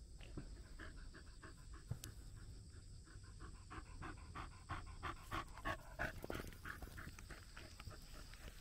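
Shiba Inu panting rapidly and evenly, about five or six breaths a second.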